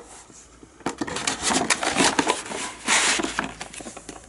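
Metal impact swivel sockets being handled: a quick run of clicks, clinks and rattles about a second in, dying away near the end.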